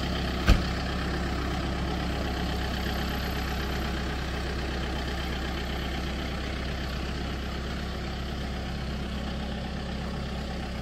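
Farm tractor's diesel engine running at a steady speed while its front-end loader carries a load. A single sharp knock sounds about half a second in, louder than the engine.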